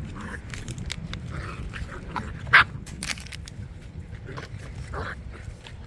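Dogs at play, giving several short yips or small barks. The sharpest comes about two and a half seconds in, among scattered clicks.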